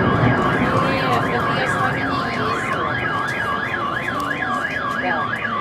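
A car alarm sounding: a steady tone that switches about two seconds in to a fast rising-and-falling warble, about three sweeps a second.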